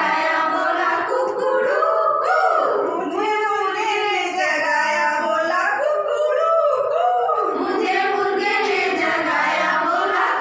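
A group of women singing a song together, unaccompanied.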